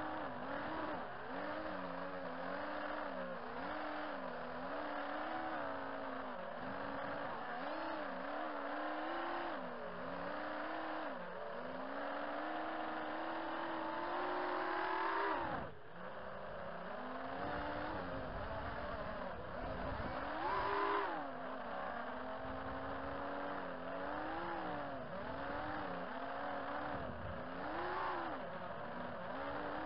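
FPV racing quadcopter's 2206 2200kv brushless motors whining in flight, the pitch rising and falling constantly with the throttle. About halfway through the whine climbs to a peak and cuts off sharply, then picks up again.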